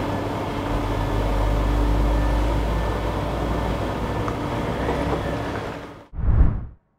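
Steady mechanical hum with a low rumble underneath that fades away just before six seconds in, followed by a short loud whoosh.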